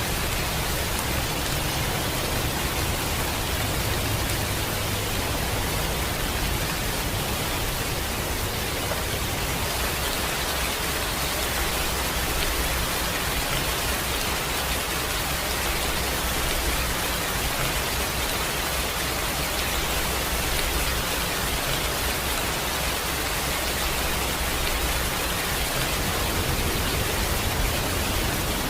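Steady, even rain with no thunder crack or sudden change.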